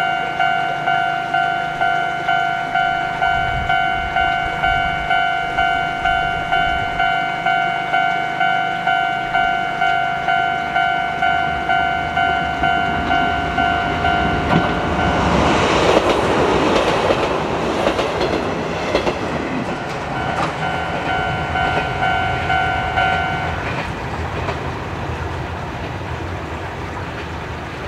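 Level-crossing alarm ringing in even pulses, about two a second. About halfway through, an Izuhakone Railway 7000 series electric train passes close by with a loud rush of wheel and running noise. The alarm keeps ringing a few seconds after the train has passed, then stops, leaving the train's sound fading away.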